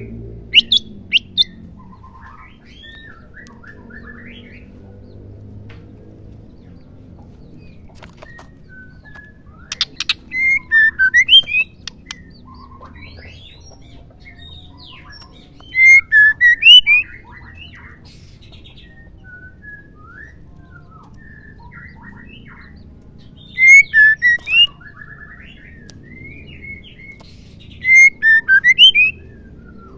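Female white-rumped shama calling: four clusters of quick, sharp notes, spaced several seconds apart, with softer chirps in between. Keepers play this kind of female call to provoke males into full song.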